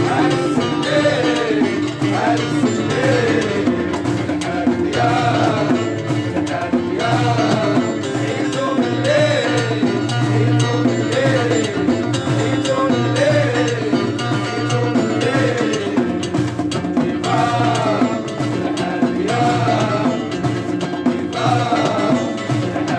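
Music with percussion: a melody rises and falls in short repeated arching phrases over a steady low drone.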